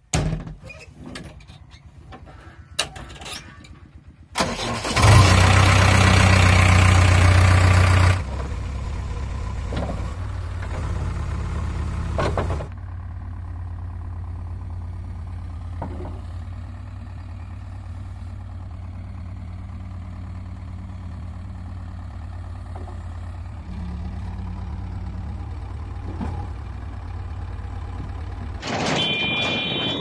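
JCB 3DX backhoe loader's diesel engine starting up about five seconds in, running loud for about three seconds, then settling to a steady idle. A few knocks come before it starts, and a high beeping sounds near the end.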